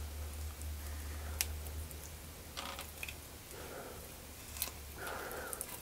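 A knife cutting meat away from a rabbit's backbone: faint soft slicing with a few small, sharp clicks, the loudest about a second and a half in and again near the end.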